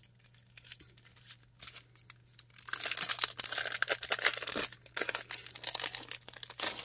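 Clear plastic packaging sleeve being picked at and peeled off a paper planner insert. A few faint crackles come first, then from about three seconds in a dense run of loud plastic crinkling and tearing.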